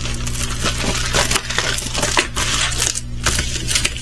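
Plastic packaging crinkling and crackling in quick, irregular bursts as a diamond painting kit is unwrapped and handled.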